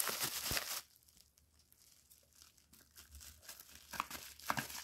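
Plastic bubble wrap crinkling and crackling as it is unwrapped by hand. It goes quiet after about a second, then crackles again, in separate snaps, from about three seconds in.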